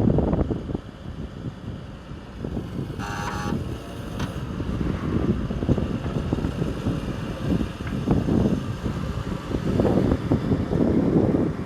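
Wind buffeting the microphone over a rumbling vehicle, with a short pitched blast, like a horn, about three seconds in.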